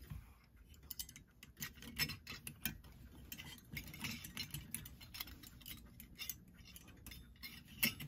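Light, irregular metal clicks and taps as brass clock wheels and small parts are handled and set into the plate of a clock movement during reassembly.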